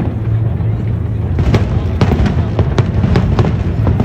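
Aerial fireworks going off in quick succession: sharp bangs and crackles, a few at first, then several a second from about a second and a half in, over a steady low rumble.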